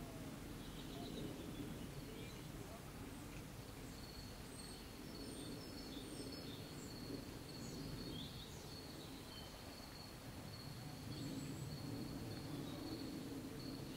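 Faint background ambience: a low, steady murmur with a few short, high chirps. A thin, steady high-pitched tone comes in about four seconds in and holds.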